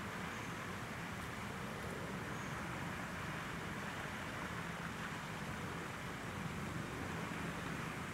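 Steady outdoor background noise: an even hiss with a low hum underneath and no distinct events.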